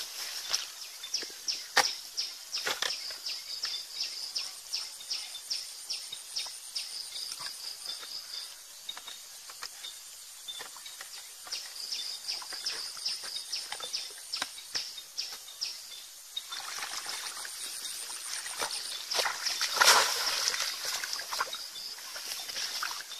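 Shallow river water sloshing and splashing around a person wading and handling bamboo fish traps, loudest about twenty seconds in. Under it runs a rapid series of short, high chirps, two or three a second, that fades out about two-thirds of the way through.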